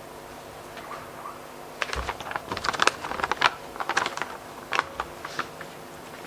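Handling noise close to a lectern microphone: a quick, irregular run of clicks and taps for a few seconds, then it stops.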